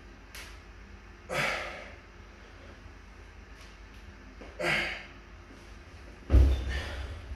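Two forceful exhales of breath, about three seconds apart, during dumbbell Romanian deadlift reps, then a heavy thud of dumbbells meeting a rubber floor mat about six seconds in, the loudest sound.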